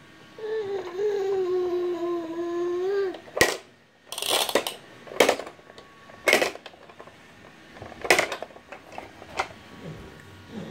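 A toddler's voice holding one long, slightly falling vowel, then about five sharp plastic clicks a second or two apart as the spring-loaded lids of a pop-up toy snap up and are pressed shut.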